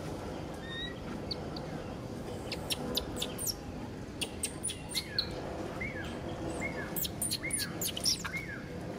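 Short, high animal chirps: first a scatter of thin, very quick chirps, then from about halfway through a run of squeaky calls, each falling in pitch, several a second.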